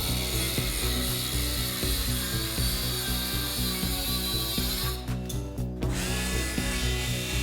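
Bosch 12V max brushless angle grinder with a 76 mm cutting disc running and cutting through metal, a high whine and grinding hiss that cuts out for about a second near the five-second mark, over a rhythmic low pulsing.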